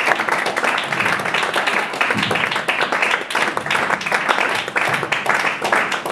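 A small audience applauding, many hands clapping at once.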